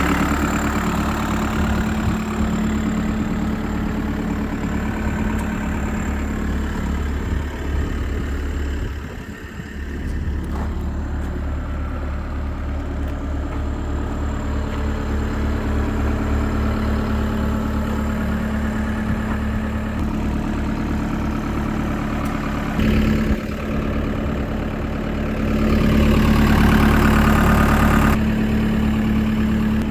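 Case SR250 skid steer loader's diesel engine running steadily at idle. It dips briefly about nine seconds in and runs louder for a couple of seconds near the end.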